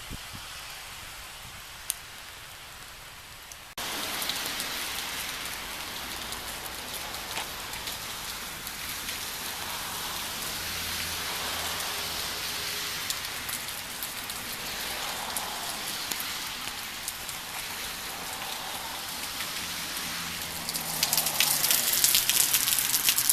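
Hard rain falling, a steady hiss of drops. About four seconds in it jumps suddenly louder, and near the end it gets louder still, with many close drops striking as sharp clicks.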